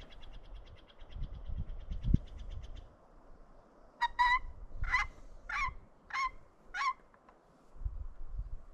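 A fast, high trill in the first three seconds, then six short turkey yelps about half a second apart, each rising sharply at the start.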